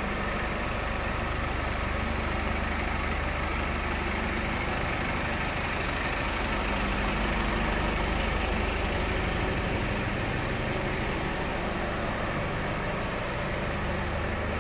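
DAF LF45's 160 bhp turbo-diesel engine idling steadily.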